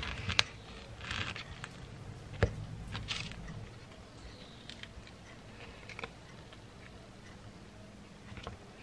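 Quiet handling sounds of food preparation on a wooden board. A knife spreads soft goat cheese on a baguette with light scrapes, and there is one sharper tap about two and a half seconds in. Then comes the soft crackle of avocado skin being peeled off by hand.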